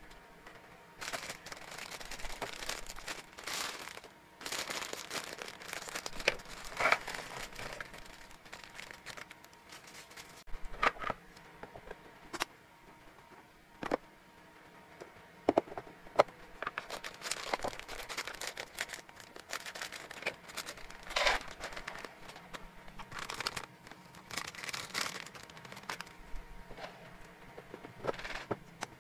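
Plastic treat packaging crinkling and rustling in several stretches as it is handled and opened, with scattered sharp clicks and knocks of hard treats and a plastic container between them.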